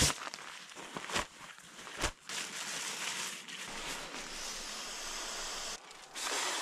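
Steady rustling hiss with three sharp clicks or knocks in the first two seconds.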